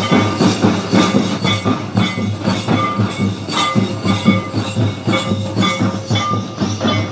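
Traditional Santal barrel drums played by hand in a fast, steady, repeating rhythm.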